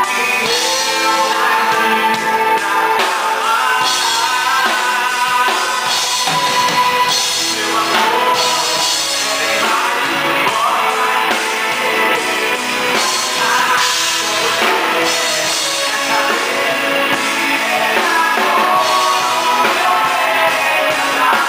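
Live band playing amplified music with a drum kit and a singing voice, heard from on stage.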